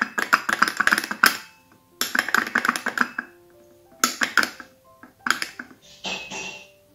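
Metal teaspoon stirring a cappuccino in a porcelain cup, clinking rapidly against the cup's sides in about five short bursts, over quiet background music.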